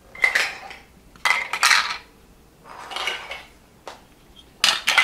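Toy plastic cakes and cookies being set down on a ceramic plate, clattering and clinking against it in about five short clatters.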